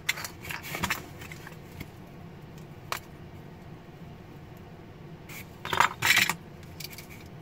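Small metal pinback buttons and pins clicking and clattering as they are handled and picked from a cardboard box. There are a few light clicks at first, a single click about three seconds in, and a louder short rattle near the end.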